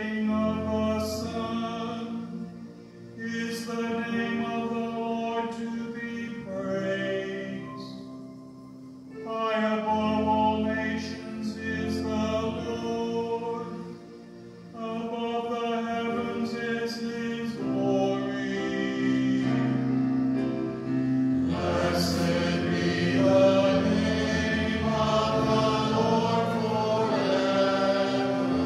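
Sung responsorial psalm: sung phrases of a slow liturgical melody over steady instrumental accompaniment, with brief pauses between phrases and a fuller sound in the second half.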